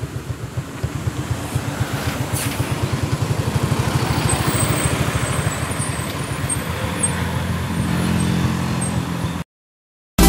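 Tour bus diesel engine running with a rapid low throb, growing gradually louder, with a short hiss about two seconds in. The sound cuts off abruptly near the end.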